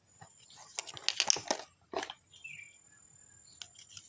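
Plastic sand-play toys and molds being handled: a run of short clicks, clatter and crinkly rustling, loudest in the middle, with a faint brief squeak and another click near the end.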